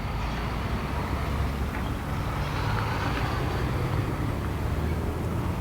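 Steady low drone of a running engine, even in level throughout.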